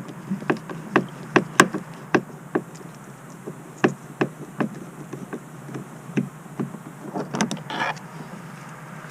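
Light, irregular clicks, about two or three a second, from a screwdriver working a No. 3 Phillips screw out of a plastic door panel.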